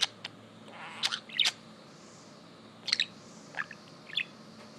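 Pet budgerigar chirping and clicking: about seven short, sharp high-pitched calls, spaced irregularly.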